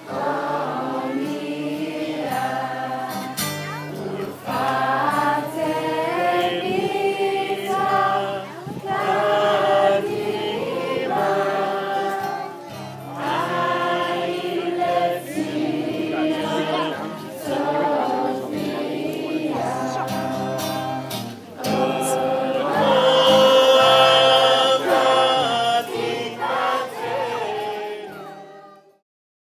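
Music: a song sung by a group of voices over a steady bass line, fading out near the end.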